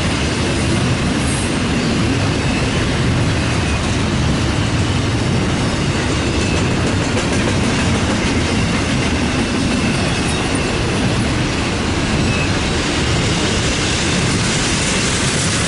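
Double-stack intermodal container cars rolling past on the rails: a steady loud rumble of steel wheels on track, with a faint high wheel squeal at times.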